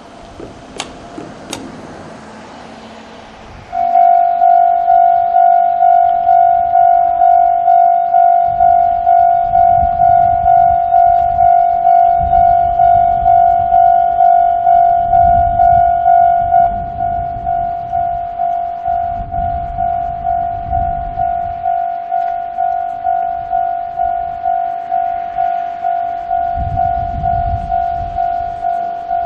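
Japanese railway level-crossing alarm with the electronic Tokai-type tone, starting about four seconds in and dinging about twice a second, a little quieter past the middle. Gusts of wind buffet the microphone throughout, with a couple of clicks just before the alarm starts.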